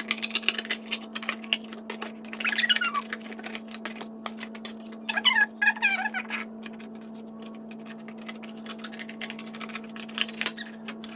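Cardboard being cut by hand: a run of short clicks and snips, with a cat meowing twice, about two and a half and five and a half seconds in, over a steady low hum.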